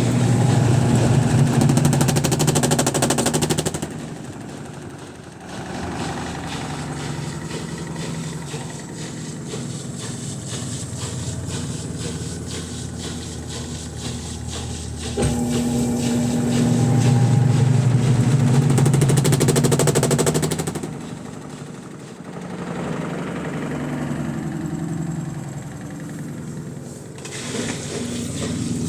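Midea washing machine running its spin cycle with a low motor hum. It breaks into a loud, rapid rattling twice, for about four seconds at the start and again for about five seconds from the middle on. The owner has not found the cause of the noise.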